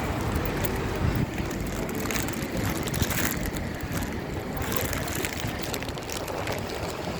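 Wind buffeting the microphone: a steady, choppy rumbling noise with a few knocks.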